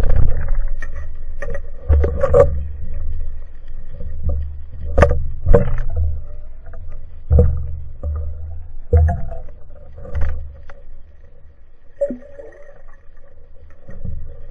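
Underwater sound picked up by a diving camera: irregular low rumbling surges of water movement, with sharp clicks and knocks as a speared fish and the spear shaft are handled.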